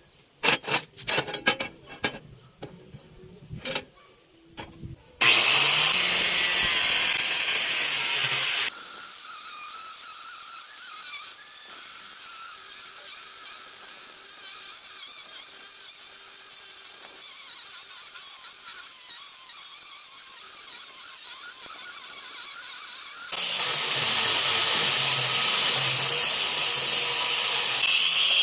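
Angle grinder cutting steel plate: a loud, steady cutting noise with a high whine, about five seconds in for a few seconds and again from near the end, with a much quieter steady running sound between the two cuts. The first few seconds hold scattered clicks and knocks.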